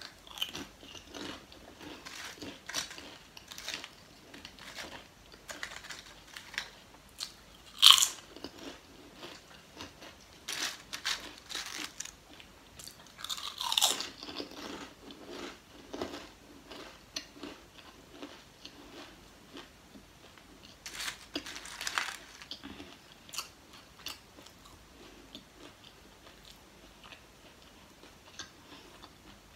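Close-miked crunching and chewing of thin Lay's potato chips: a steady run of crisp cracks as each chip is bitten and chewed, with the loudest bites about 8 and 14 seconds in. The crunching thins out over the last few seconds.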